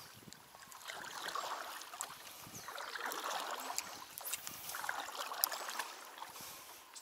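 Paddle strokes in the water beside a small boat: about three swells of swirling, trickling water, with a few short knocks, the sharpest about five seconds in.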